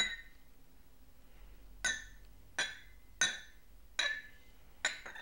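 Porcelain gaiwan lid clinking against the bowl six times, each a short bright ringing clink, the first at the start and the rest coming faster from about two seconds in.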